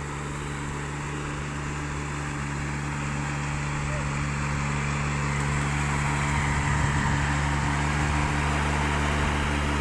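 Riding rice transplanter's small engine running steadily as the machine plants paddy seedlings in a flooded field, growing gradually louder as it draws nearer.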